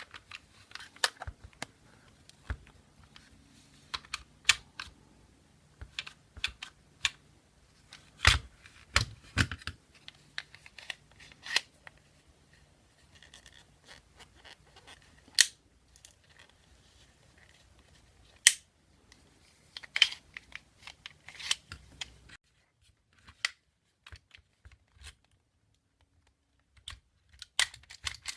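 Irregular clicks and knocks of small parts being handled and pressed back into a KWA M11 airsoft gun's lower receiver, a part that is hard to get back in, with a few sharper knocks scattered through.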